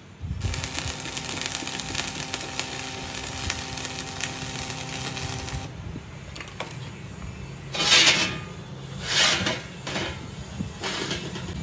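Stick arc welding on a steel plate: the arc crackles and sizzles steadily for about five and a half seconds, with a steady hum underneath, then stops. A few loud, short bursts of metal noise follow, about a second apart, near the end.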